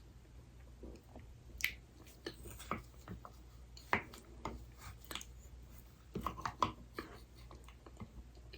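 Close-miked eating of soft desserts: wet mouth clicks and smacks while chewing. The clicks come in small clusters about two, four and six seconds in, over a faint steady hum.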